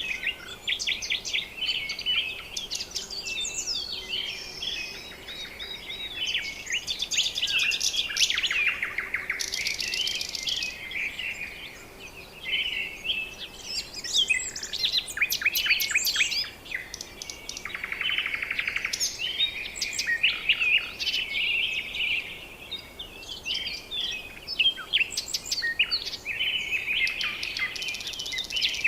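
A chorus of several songbirds chirping, whistling and trilling over one another, with quick runs of rapid notes.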